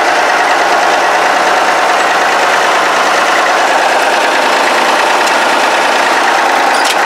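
Case 1030 tractor's diesel engine running steadily, heard from inside the cab.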